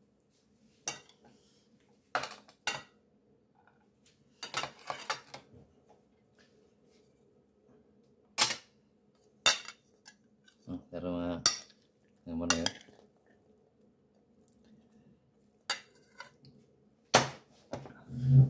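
Metal spoon clinking and scraping against ceramic plates and a serving bowl as food is dished out: a series of sharp, separate clinks, a few in quick clusters, with quiet gaps between.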